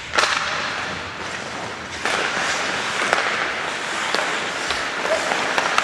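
Ice hockey faceoff and play: a sharp stick clack right at the puck drop, then skate blades scraping and carving the ice as the players break away, with a few more sharp stick-on-puck clacks.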